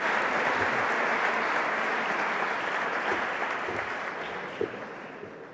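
Audience applauding, a dense steady clapping that slowly dies away toward the end.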